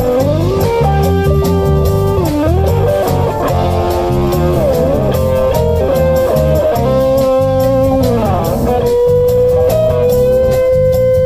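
Live band instrumental break: a lead guitar plays sustained, bent notes over a drum-kit beat, ending on one long held note, with a tambourine shaken along.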